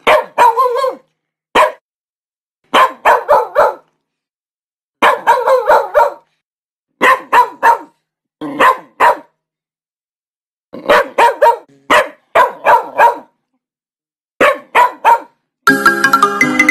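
A Lhasa Apso barking in quick bursts of about two to six barks, with gaps of a second or so between bursts. Upbeat music comes in near the end.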